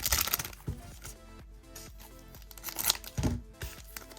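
Crinkling and rustling of a trading card pack's wrapper and cards being handled, in two short bursts at the start and about three seconds in, over quiet background music.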